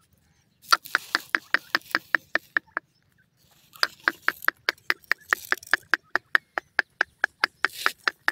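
Francolins giving a rapid series of short clucking notes, about six a second, in two bouts: a short one beginning under a second in, then after a brief pause a longer one running on.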